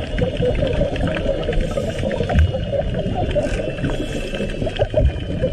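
Underwater sound picked up by a camera beneath the sea: a dense crackling hiss with a low rumble and many short, small blips.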